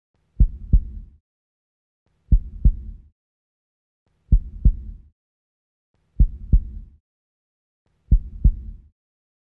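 Five double low thumps, each pair a quick one-two, repeating about every two seconds in a slow heartbeat-like rhythm.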